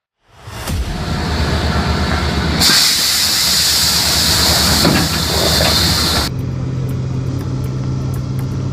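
Heavy machine running, with a loud steady hiss for about three and a half seconds in the middle. Near the end only a steady low engine hum is left.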